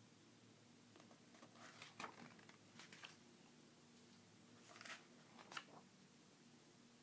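Pages of a thick comic-strip book being turned twice, each a faint paper rustle ending in a light flap as the page falls.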